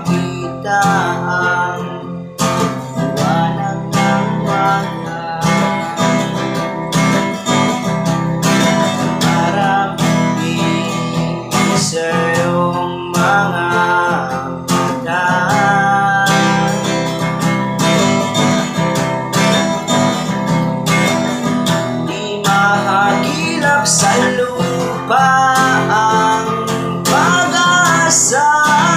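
Acoustic guitar strummed steadily as accompaniment while a man sings along with it.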